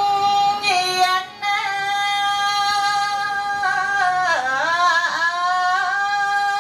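A woman chanting Khmer smot, the Buddhist sung recitation, solo through a microphone. She holds long notes with slow ornamental bends, breaks off for a breath about a second in, and dips down in pitch twice around four to five seconds in.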